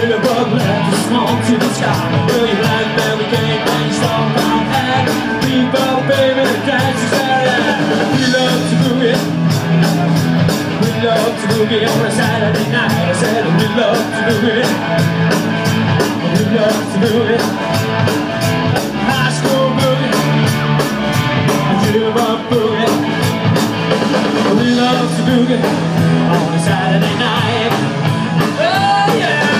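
Live rock and roll band playing electric guitars, bass and drums to a steady beat.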